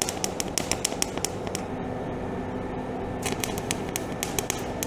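Wire-feed MIG welder arc crackling and spitting as it welds zinc-plated steel chain links, in two spells with a break of about a second and a half in the middle.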